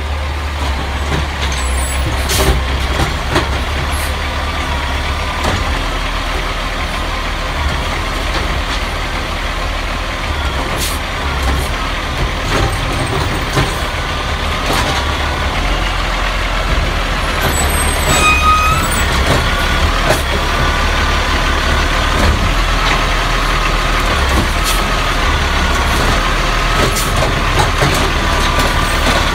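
Scorpion automated side-loader garbage truck running at low speed: a steady diesel hum with a faint higher whine and scattered metallic clanks. A brief hiss and squeak come about 18 seconds in.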